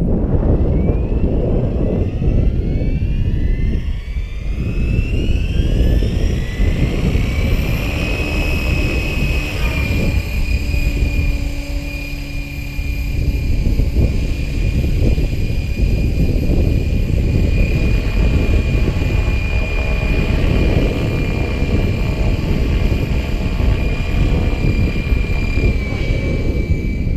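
Gaui X5 electric RC helicopter spooling up: the motor and rotor whine rises in pitch over the first eight seconds or so, then holds steady as it flies. Heavy wind noise on the microphone runs under it.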